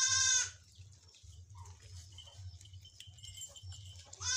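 Goats bleating: one long bleat ending about half a second in, and another starting near the end, with quiet between.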